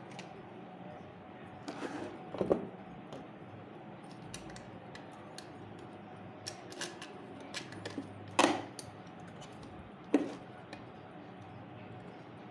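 Metal parts of a ceiling fan being handled while it is closed up: scattered light clicks and clinks, with sharper knocks about two and a half, eight and a half and ten seconds in.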